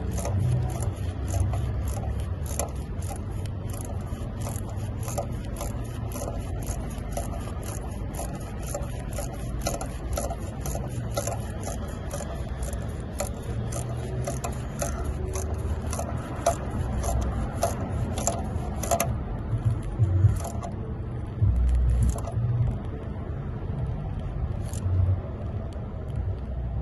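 Hand ratchet clicking steadily, about three clicks a second, as a bolt is run in; the clicking stops about two-thirds of the way through and a few knocks follow.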